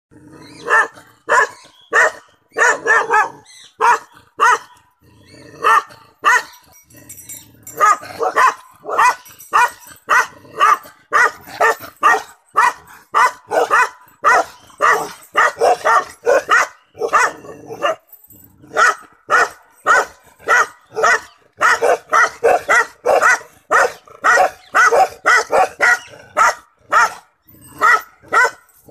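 Bakarwal puppy barking over and over, about two barks a second, with a short break about eighteen seconds in.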